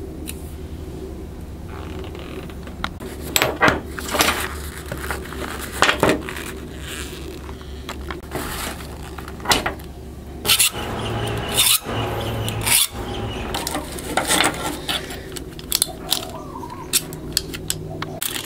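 Pieces of metal and hand tools clinking and scraping against one another: a string of sharp metallic knocks with scraping between them, over a low steady hum that stops about halfway through.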